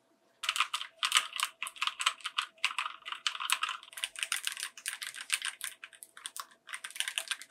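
Fast typing on a transparent mechanical keyboard with jellyfish switches and clear keycaps: a dense run of key clacks starting about half a second in, with a brief pause near the end.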